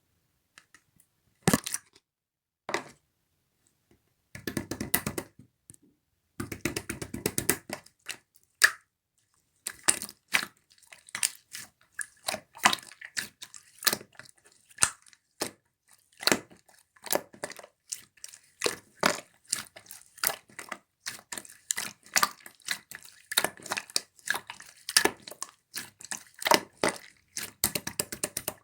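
Slime being squished and pressed by hand, making sharp wet pops and clicks. A few scattered pops and two short stretches of denser crackling come first, then the pops run on irregularly, several a second, from about ten seconds in.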